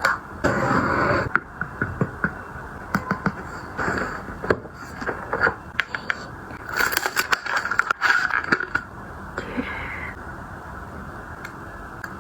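Irregular clicks, taps and short scraping rustles, like objects and packaging being handled and set down.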